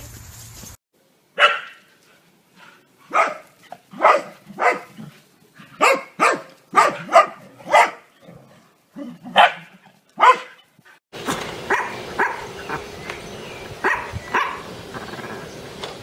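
Dogs barking: a run of sharp, separate barks, one or two a second, ending about ten seconds in. After that come fainter barks over a steady background hiss.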